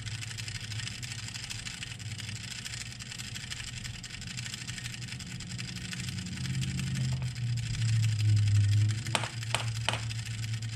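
Timer mechanism of a late-1940s Toastmaster toaster running with a steady low hum and a fine, even ticking haze; the hum grows louder about six seconds in, and two sharp clicks sound near the end. The timer is sluggish, probably from old grease.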